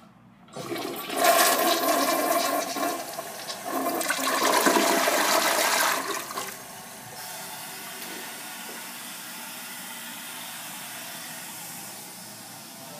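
1996 Crane Plumbing Hymont toilet flushing: a loud rush of water into and out of the bowl that starts about half a second in and lasts about six seconds, then gives way to a much quieter steady hiss of water refilling.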